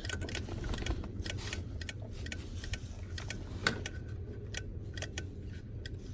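Light clicking, a few clicks a second, from the wiper governor (intermittent wiper control module) of a 1991 Ford F-150 with the wiper switch on. The governor is getting power but the wipers do not run, a fault later put down to the old, corroded wiper motor.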